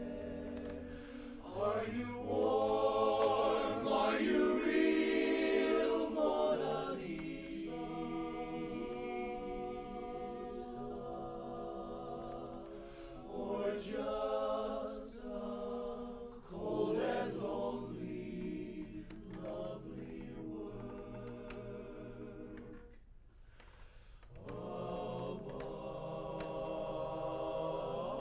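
Men's barbershop chorus singing a cappella in close four-part harmony, holding sustained chords that change every second or two. It swells loudest a few seconds in, fades almost to nothing about three-quarters of the way through, then builds again.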